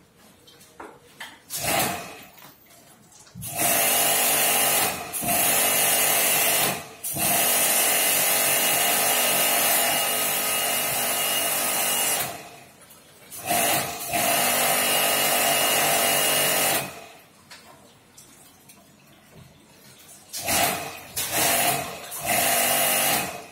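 Electric jet pump (small pressure washer) spraying water on an air conditioner, switched on and off several times: a steady motor hum under the hiss of the spray. The longest run lasts about five seconds, and near the end come three short bursts.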